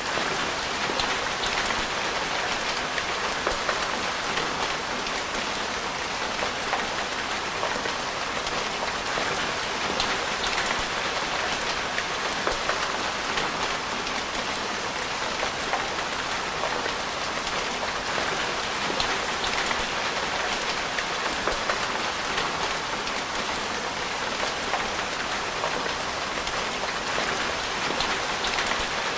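Steady rain falling: an even, dense hiss flecked with fine ticks of individual drops.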